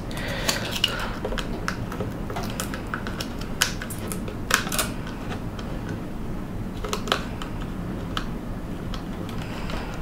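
Hands handling a WD Green 2.5-inch SSD and peeling the backing off double-sided tape stuck to it: scattered small clicks and light rustles, a few of them in close pairs, over a steady low background.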